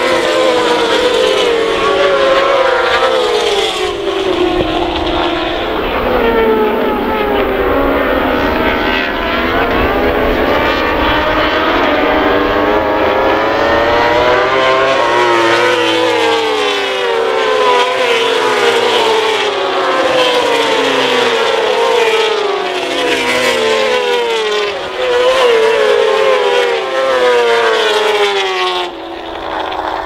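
Several racing superbikes at full throttle, their engine notes overlapping and repeatedly climbing then dropping sharply as each rider shifts up through the gears.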